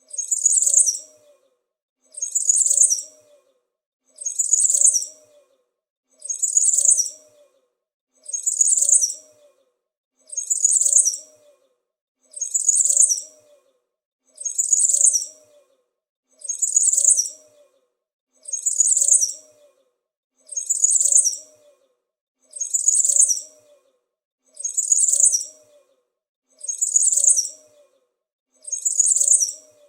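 Small bird chirping in high-pitched bursts of about a second, the same burst repeating every two seconds as a steady loop.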